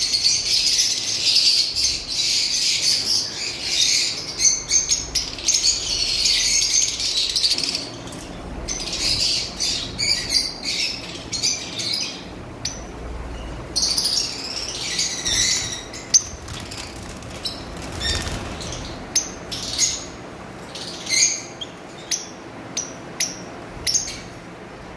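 A flock of caged lovebirds chattering in high, shrill chirps: a dense, continuous chatter for the first several seconds, then thinning out to separate chirps.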